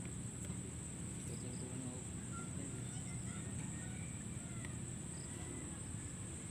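Insects droning steadily at one high pitch, over a low outdoor rumble.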